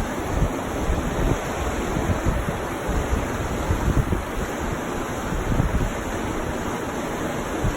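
Wind buffeting the microphone in uneven gusts over the steady rush of the Fraser River's fast water.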